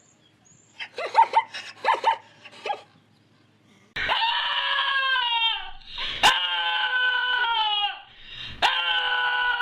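Dog vocalizing: a few short yips, then long high wailing howls, each dropping in pitch at its end.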